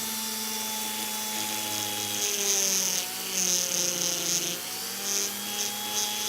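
A small high-speed power tool running steadily while smoothing the steel chain butterfly knife to take off rough spots. Its pitch dips slightly at times, and a higher grinding hiss comes and goes in the middle as it bears on the metal.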